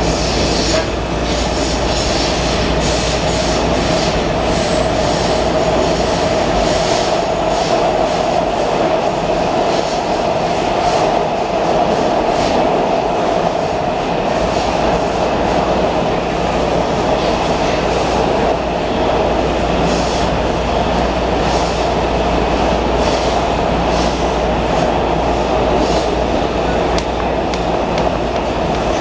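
Washington Metro 2000-series subway car running at speed through a tunnel, heard from inside the car: the steady noise of steel wheels on rail with a constant hum, and scattered clicks from the track.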